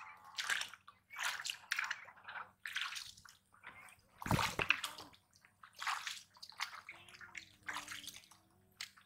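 Bare feet wading into a shallow, weed-choked muddy pond, each step sloshing in the water, with one heavier splash about halfway through.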